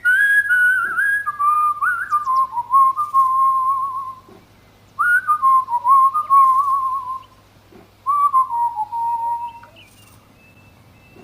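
Whistling in three phrases, each a wavering tone that slides downward and then trails off.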